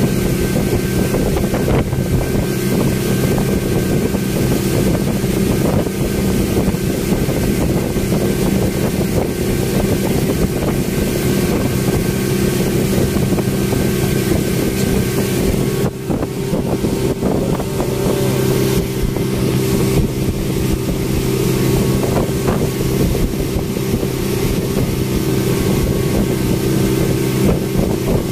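Speedboat engine running steadily at cruising speed, a constant droning hum, with wind rushing past the microphone.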